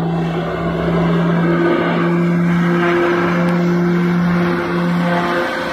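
Twin turboprop engines of a high-wing light airliner running, a loud steady propeller drone over a rushing noise as the plane moves on the runway.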